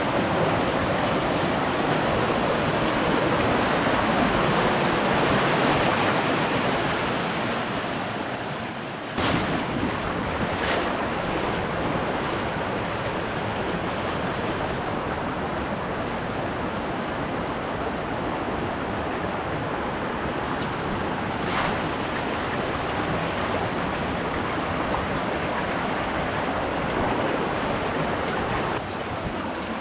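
Mountain creek rushing over rocks and small cascades, a steady rush of water. The sound changes abruptly about nine seconds in and again near the end, and a few brief knocks stand out.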